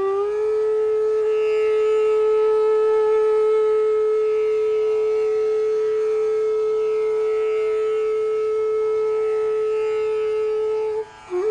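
Background music: a single note is held steady for about eleven seconds over a faint drone. It breaks off briefly near the end, and a gliding, ornamented melody picks up again.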